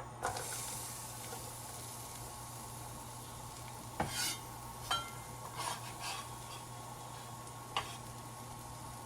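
Food frying in a pan, the sizzle starting suddenly just after the beginning, with a utensil scraping and clicking against the pan several times.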